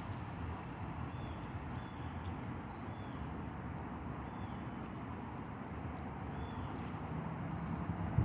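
Steady outdoor background noise, a low even rumble, with faint short high chirps about once a second.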